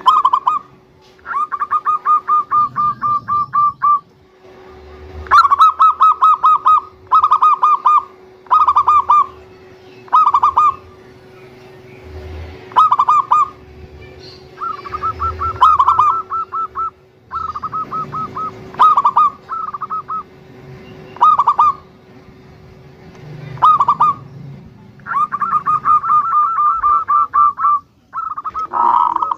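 Zebra dove (perkutut) calling: about fourteen runs of rapid, staccato cooing notes, each run lasting from under a second to a couple of seconds, with short pauses between them.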